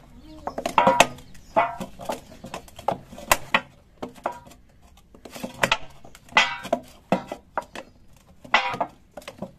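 Hands kneading a stiff urad dal murukku dough in a steel bowl: irregular knocks and taps of dough and knuckles against the metal, with music playing in the background.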